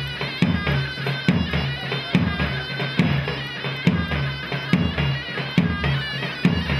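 Anatolian folk dance music: a shrill reed pipe plays a sustained melody over a deep drum beating a steady rhythm.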